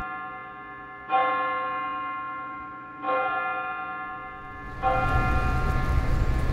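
A ringing bell-like chime struck three times, about two seconds apart, each stroke fading slowly. From about five seconds in, a steady low rumble of city traffic joins under it.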